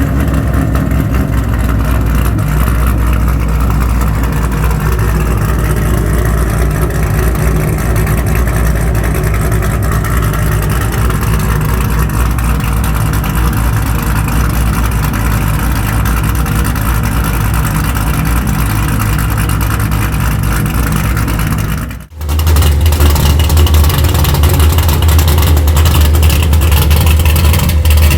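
Cammed Camaro V8 with an aftermarket performance camshaft, idling steadily. About 22 seconds in, the sound cuts to a second cammed V8 that runs louder and deeper.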